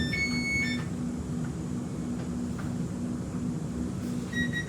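Cabin noise inside an X'Trapolis 2.0 electric suburban train: a steady low hum with a faint, evenly pulsing low tone. An alternating two-tone chime stops within the first second, and a steady high tone starts near the end.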